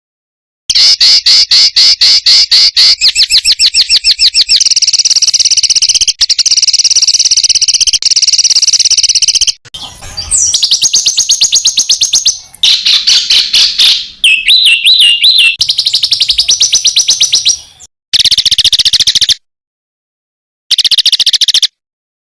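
Songbird song used as training (masteran) material: long runs of very fast repeated high notes, with a brief run of looping up-and-down whistles midway. In the last few seconds it breaks into short bursts that cut off abruptly into silence, as in an edited recording.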